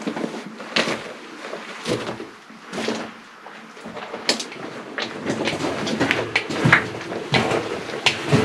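Irregular scrapes, knocks and rustles of people shuffling hunched over on rock and dirt in a low cave passage, with clothing and gear brushing. The sounds get busier over the last few seconds.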